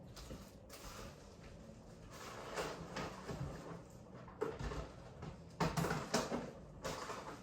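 Scattered knocks and rustling over a faint steady low hum, with the loudest knocks about two-thirds of the way through.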